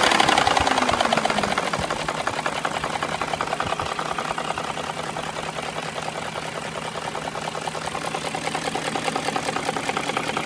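BMW M62 V8 just after starting, its revs falling over the first two seconds as it settles to idle, with a fast, even rattling knock from the VANOS: no oil pressure is reaching the VANOS, put down to a clogged valve in the block.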